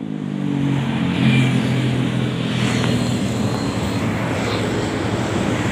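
Honda automatic scooter's engine pulling away, its pitch rising over the first second or so, then running steadily with wind and road noise.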